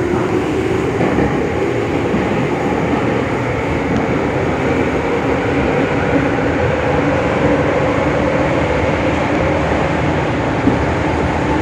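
Nagoya Municipal Subway Tsurumai Line train running in a tunnel, heard from inside the car: a steady rumble of wheels and running noise with a low, even tone from the train's drive.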